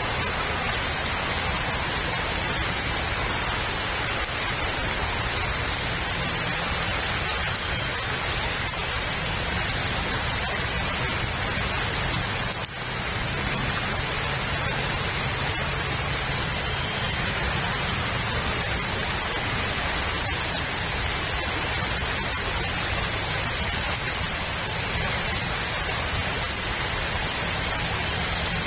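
Steady rain, an even hiss with no let-up, with a brief drop in level about twelve seconds in.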